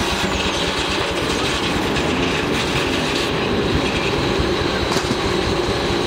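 Belt-driven antique sawmill running: a steady mechanical clatter and rapid low chugging from the drive, with a steady hum over it.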